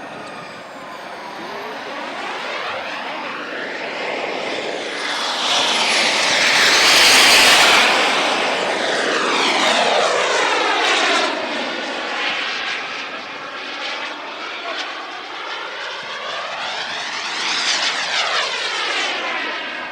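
Turbine-powered RC jet, the Hangar 9 Aermacchi MB-339 scale model, flying past with a whooshing jet-engine hiss that swells to its loudest about seven seconds in, fades, and swells again with another pass near the end.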